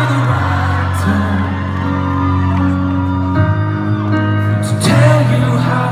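A synth-pop band playing live through an arena PA: sustained keyboard chords that shift a few times, with a sung vocal over them and fans whooping from the crowd.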